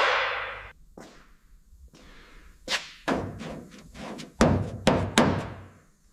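Sharp knocks or blows. A loud one at the start fades over about a second, a faint one follows, then five more land in quick succession in the second half, each with a short ringing tail.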